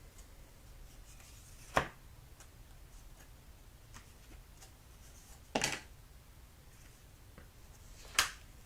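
Trading cards being handled on a table: three sharp clicks, a couple of seconds apart, with a few fainter ticks between.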